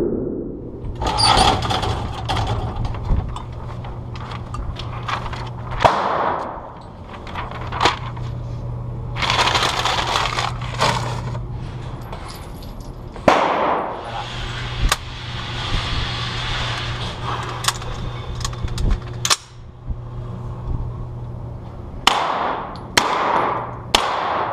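Gunshots at a shooting range: a dozen or more single shots at uneven spacing, each with a ringing tail, over a steady low hum.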